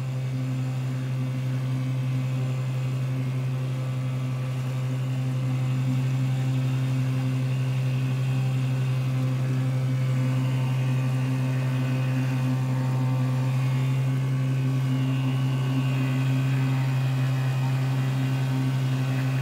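Small dinghy outboard motor running at a steady, unchanging speed as the boat cruises across flat water.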